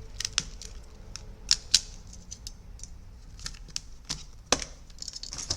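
Irregular light clicks and taps of small tools and parts being handled on a repair bench, with two sharper clicks close together about a second and a half in.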